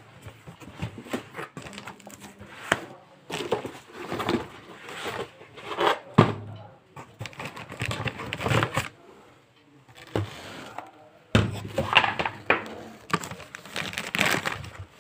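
Cardboard boxes being opened and handled: flaps rubbing and scraping, with plastic wrapping crinkling and a couple of dull thumps.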